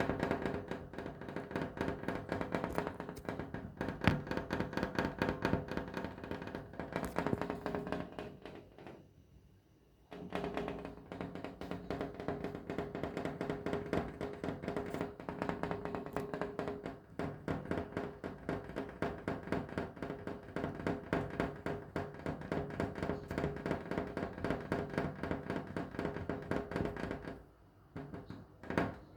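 Rapid tapping on a window pane, the glass ringing with a steady tone under the taps. The tapping pauses about nine seconds in, then resumes and stops near the end.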